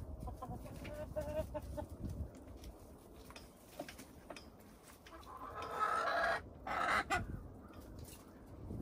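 Domestic hens clucking softly, with a louder, drawn-out call between about five and seven seconds in, broken briefly partway through, and small scratching and pecking clicks in the litter.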